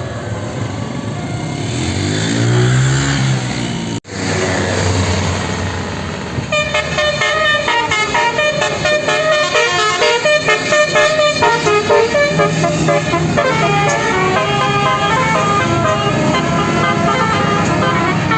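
A vehicle engine passes, then the sound drops out for an instant. From about six seconds in, a bus's basuri telolet horn, a set of musical air-horn trumpets, plays a quick tune of short stepping notes over the engine's hum.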